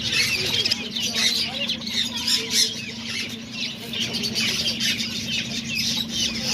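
Many caged birds chirping and squawking at once in a dense, continuous chorus, with a steady low hum underneath.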